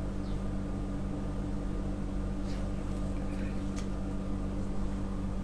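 A steady low mechanical hum, unchanging throughout, with a couple of faint clicks about halfway through.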